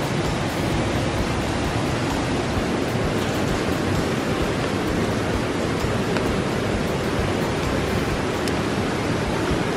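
Steady rushing of a river, an even wash of noise with no breaks.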